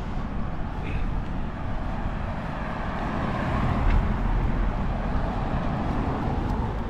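Road traffic running steadily, with one vehicle passing close by and loudest a little past halfway.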